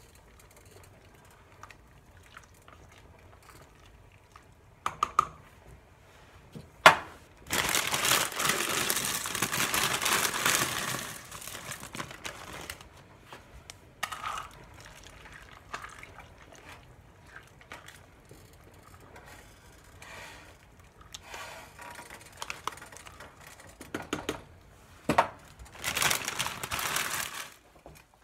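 Plastic bag of dried egg noodles crinkling as the noodles are shaken into a pot of broth, in two long stretches, the first about a third of the way in and the second near the end. Between them, a ladle knocks and clinks against the stainless-steel pot as the noodles are stirred in.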